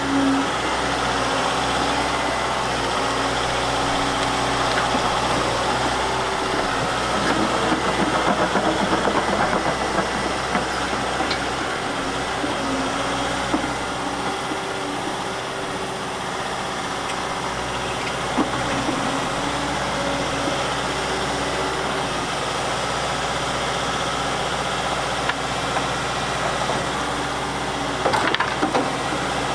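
Volvo tracked excavator's diesel engine running steadily while it works, with a few short knocks and clatters, the loudest cluster near the end.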